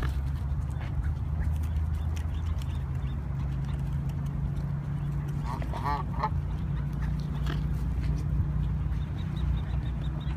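Waterfowl calling in a short quacking burst about six seconds in, with scattered light clicks, over a steady low rumble.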